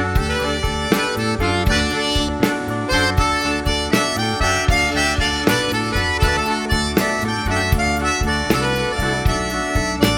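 Cajun dance band playing an instrumental passage: a Cajun accordion carries the reedy lead melody over drums keeping a steady beat.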